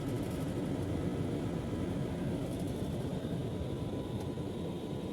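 Newly installed split air conditioner running: a steady low hum and rush of compressor and fan, with a faint thin tone above it.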